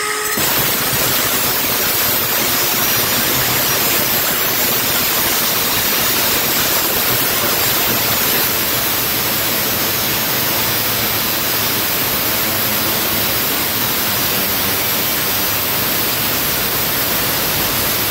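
Milwaukee M18 FUEL 2980-20 6-inch brushless cordless angle grinder cutting into a steel door jamb, a loud steady grinding hiss without a break. The blade is worn and no longer bites into the steel the way a new one does.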